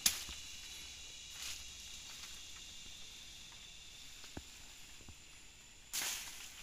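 Dry bamboo leaves and grass stems rustling as they are pulled and pushed aside by hand. A sharp crack comes right at the start, and rustles follow about a second and a half in and again near the end. Under it runs a steady, high insect drone.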